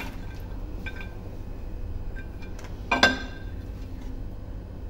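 A few faint clicks as almonds are tipped into a pot of thick kheer, then one sharp metallic clink about three seconds in that rings briefly: a utensil striking the metal cooking pot. A low steady hum runs underneath.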